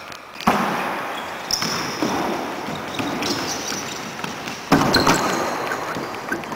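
A futsal ball being kicked and struck on a wooden sports-hall floor, with two sharp, loud hits, one about half a second in and one near five seconds in, and smaller knocks between them, all echoing in the hall. Short high squeaks, most likely shoe soles on the wood floor, come with the play.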